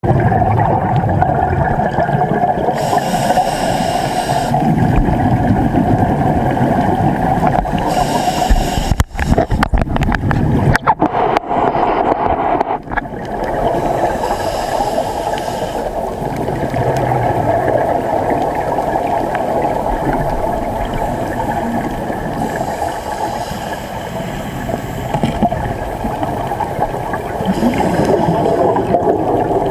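Underwater sound of scuba diving, muffled and steady, with a diver's exhaled bubbles hissing out every five or six seconds. A few seconds of crackling and knocking come about ten seconds in.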